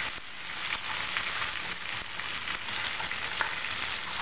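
Tandoori-marinated chicken legs sizzling steadily in hot oil in a nonstick frying pan, with a few light scrapes of a steel spoon as the released oil is spooned over them.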